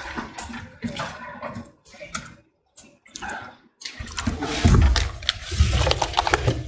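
Rustling and low thumping of handling noise on a worn microphone as the wearer moves and bends down. It comes in uneven bursts, drops out briefly in the middle, then gets heavier in the second half.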